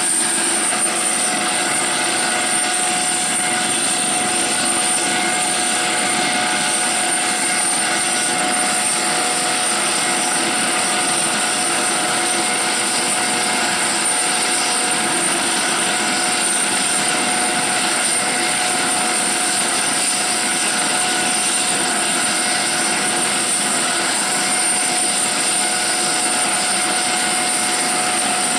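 HH-65 Dolphin helicopter running steadily on the ground with rotors turning: a constant high turbine whine over the rushing rotor and engine noise, with no change in pitch or level.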